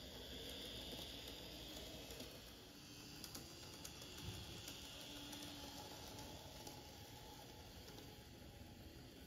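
Model of a JR West DE15-2500 diesel locomotive with Russell snow plow running on layout track: a faint whir from its small electric motor, with a few light clicks of the wheels on the rails near the middle.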